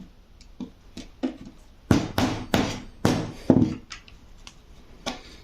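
A series of sharp taps and knocks from tools working a small metal filigree part: a few light taps, then a louder run of about six knocks in the middle, and one more near the end.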